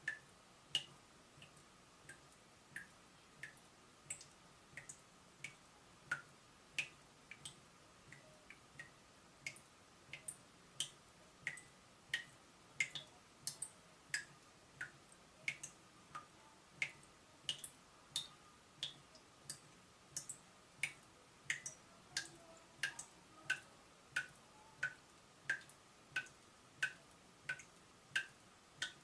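Water dripping from a leaking tap: a steady run of short, bright plinks, a little under two a second, some drops louder than others.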